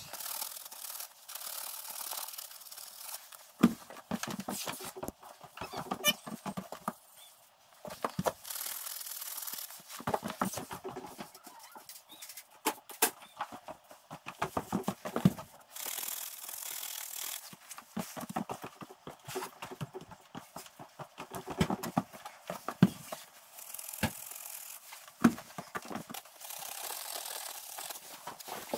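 An aerosol spray-paint can hissing in short bursts of a second or two as paint is sprayed through a stencil onto wool bales, with knocks and clatter in between.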